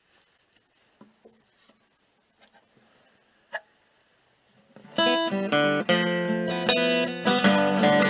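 Background music on strummed acoustic guitar, starting suddenly about five seconds in. Before it there are only a few faint clicks.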